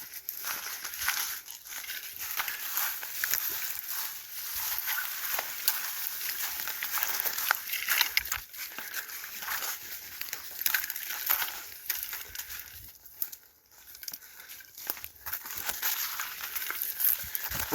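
A hiker's footsteps crunching along a forest trail: an irregular run of crunches and crackles, easing briefly near the three-quarter mark.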